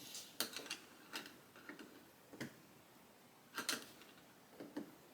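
Small, sharp clicks and taps at uneven intervals, about seven in all, some in quick pairs, from a dog-grooming clipper blade and its tension spring being handled and adjusted.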